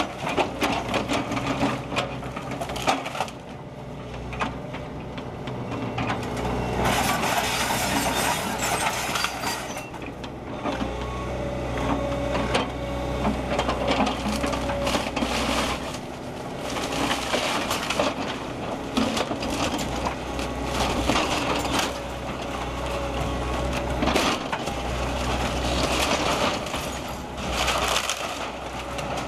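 Excavator demolishing a brick house: wood and masonry crack, splinter and crash down in irregular bursts over the steady running of the excavator's engine.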